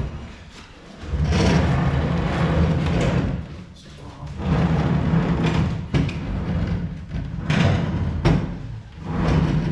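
A joined run of kitchen base cabinets being shoved and dragged across the floor in several heavy pushes, each a rough scraping rumble lasting a second or two, with knocks in between.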